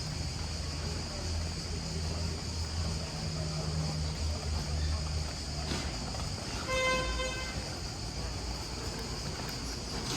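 A single short vehicle horn toot, one steady note, about seven seconds in. Under it runs a steady high insect buzz and a low rumble.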